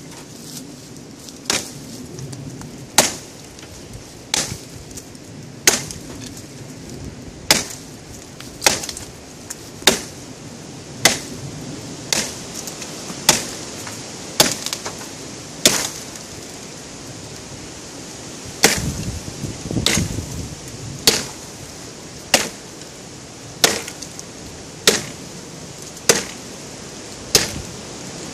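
Busse NMFBM chopper, a big convex-edged steel knife, chopping into the limb of a fallen tree: sharp, crisp chops about one every second and a quarter, some twenty in all. A short pause a little past the middle is followed by a cluster of duller, lower thuds and rustling.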